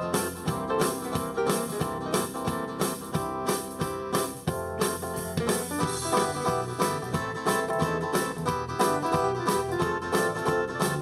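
Instrumental background music led by keyboards, with a steady beat of about two strokes a second.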